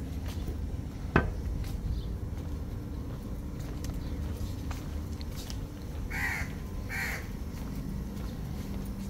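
A crow cawing twice, about six and seven seconds in, over a steady low hum and faint footsteps on stone paving. A single sharp click about a second in.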